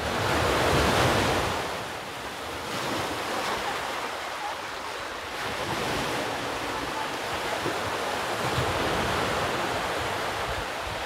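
Sea surf washing onto the shore, mixed with wind rumbling on the microphone; the surf swells loudest about a second in, then settles into a steady wash.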